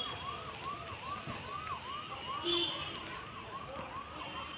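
Siren sounding in a fast, regular up-and-down yelp, about two and a half sweeps a second, with a brief higher tone cutting in halfway through.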